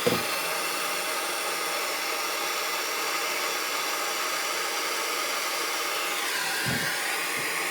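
Handheld gas soldering torch running with a steady hiss as it heats a copper pipe fitting for soldering. Its tone shifts a little about six seconds in.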